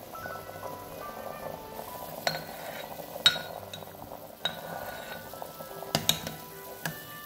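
Soup at a rolling boil in a ceramic pot, bubbling, while a porcelain spoon stirs it and clinks sharply against the pot about six times, loudest about three seconds in.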